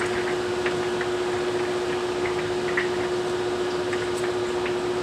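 Steady hiss of storm rain and wind, with a steady hum underneath and scattered light ticks.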